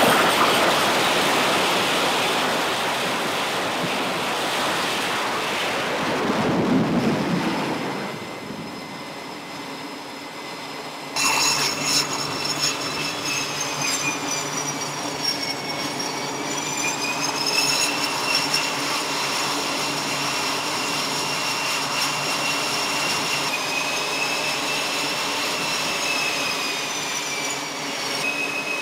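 Jet launching off an aircraft carrier's catapult. The engines at full power start with a sudden loud roar that fades over several seconds. Then the steady turbine whine of a taxiing F/A-18 Hornet's engines begins abruptly, several high tones dipping and rising in pitch.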